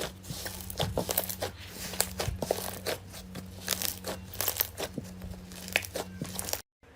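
Hands pressing and pulling slime close to the microphone: a dense, irregular run of sticky clicks, crackles and small pops, over a low steady hum. It cuts off abruptly near the end.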